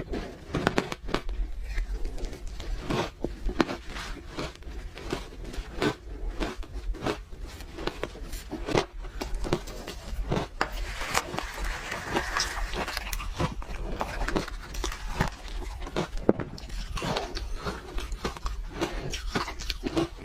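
Ice being bitten and chewed close to the microphone: a dense, irregular run of sharp, crisp crunches.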